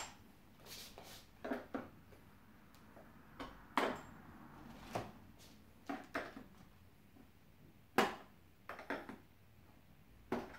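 Irregular clicks and scrapes of a T-handle combination wrench undoing the screws of a Husqvarna 395 XP chainsaw's plastic top cover, with a dozen or so short sharp knocks spread out at uneven gaps.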